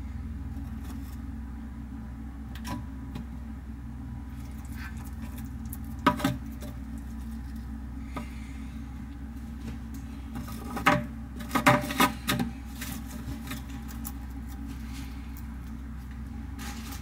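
Short knocks and scrapes of a shallow feeding bowl being handled and set down on the enclosure's textured floor. One sharp pair comes about six seconds in and a cluster follows past the middle, over a steady low hum.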